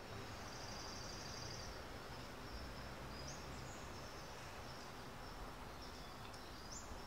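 Faint outdoor garden ambience: a steady background hiss with high, faint bird calls, a short trill near the start and a couple of brief rising chirps later.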